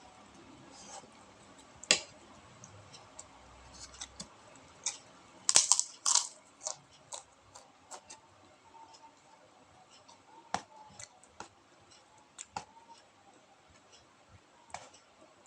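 Eating close to the microphone: crunchy bites of kerupuk crackers with rice, heard as scattered sharp crunches and clicks, the loudest cluster about five to six seconds in.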